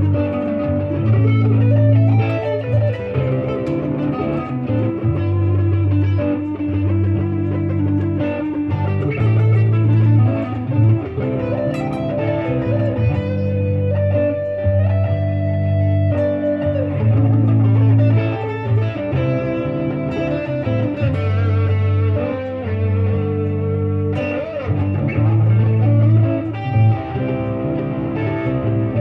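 Electric guitar playing a lead melody with bent notes, over a backing track whose low bass notes repeat in a cycle about every eight seconds.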